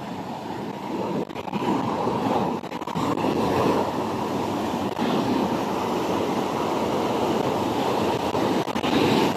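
Fast, turbulent white water rushing down a concrete-lined channel, a steady, heavy rush that grows louder about two seconds in and then holds.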